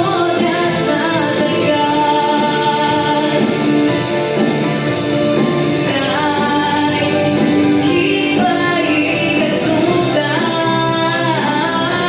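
A song playing: a high singing voice over an instrumental backing track, between sung lines of lyrics.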